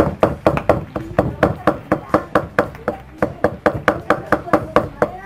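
A large kitchen knife rapidly chopping fried beef tripe on a thick wooden chopping block: a steady run of sharp knocks, about four to five strokes a second.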